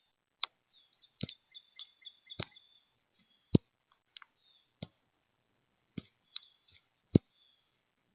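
Birds at a seed feeder: about seven sharp taps and knocks at irregular intervals, with faint, short high chirps between them.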